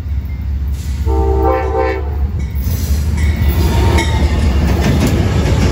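Amtrak diesel locomotive sounding a short multi-tone horn blast about a second in over its engine rumble, then the train passing close by, louder, with rushing noise and rapid clicking of wheels on the rails.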